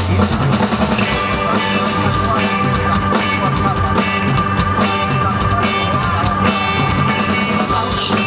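Rock music: a band playing an instrumental passage, with a drum kit keeping a steady beat and a held high note entering about a second in.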